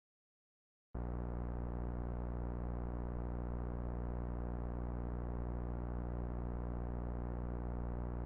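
Background music: a steady low synthesizer drone that cuts in abruptly about a second in after dead silence and holds at an even level.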